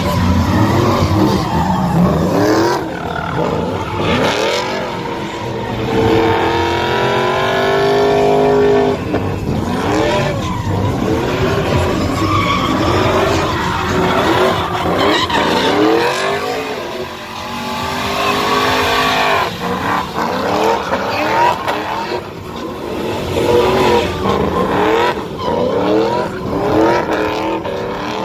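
A vehicle doing a burnout: the engine revs hard, its pitch rising and falling and holding high for a few seconds, over the squeal of spinning tires.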